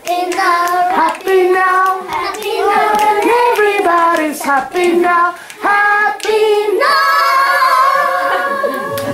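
Children singing a song together, ending on a long held note.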